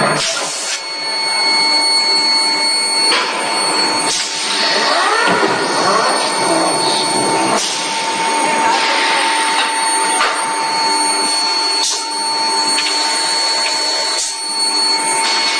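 Forging shop with an electric screw press forging pipe fittings: a steady machine hum with a few constant whining tones, broken by sharp strikes of the press every one to four seconds, about seven in all.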